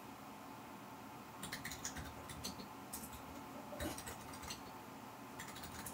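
Faint, scattered crinkles and ticks from a paper bag as a cat shifts inside it, starting about a second and a half in.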